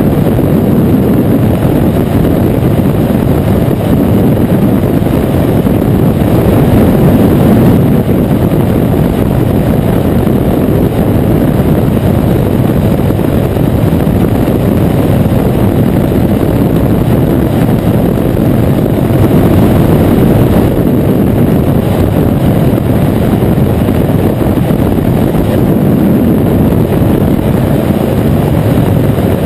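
Flexwing microlight trike in flight: its engine and propeller drone loud and steady, mixed with wind rushing over the open-cockpit microphone.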